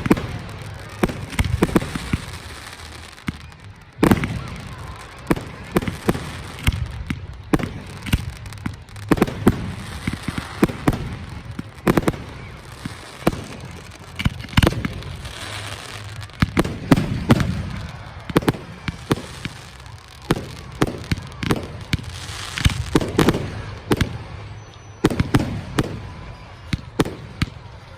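Aerial fireworks display: shells bursting in quick succession, with many sharp bangs, often several a second, over a continuous low rumble.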